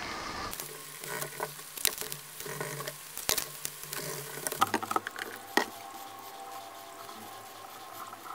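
Irregular crackling and sharp clicks of blue painter's tape being pulled, torn and pressed down onto a walnut board.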